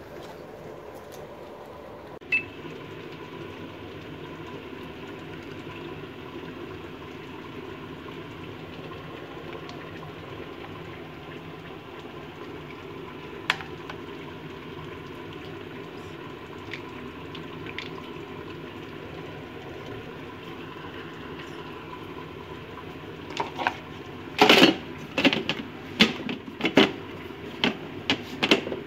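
A steady low background hum with a single sharp knock now and then, then a run of loud knocks and clatter near the end as a hand works the Thermomix mixing bowl and lid.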